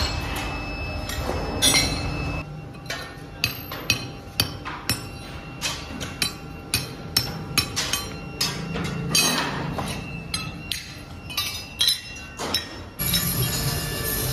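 Hand hammer striking metal castings on an anvil, sharp clinks with a short metallic ring, unevenly about two a second. Background music comes in near the end.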